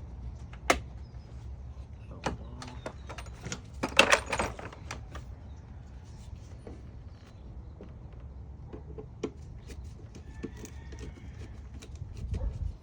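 Scattered clicks and knocks of tools and plastic parts as a car's air intake box is being taken apart, with a louder clatter about four seconds in and a dull low thump near the end.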